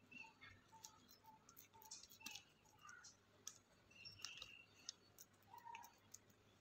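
Near silence, with faint small clicks and crinkles of a plastic milk packet as fingers press and flatten a ball of vada dough on it. A few faint short chirping notes sound in the background.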